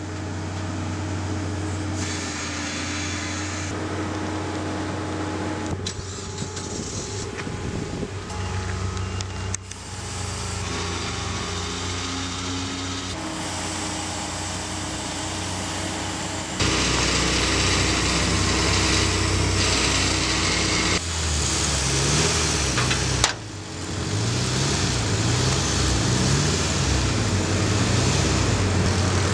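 Flatbed tow truck's engine running steadily across several cut shots, louder from about 17 seconds in, with one sharp knock near 23 seconds.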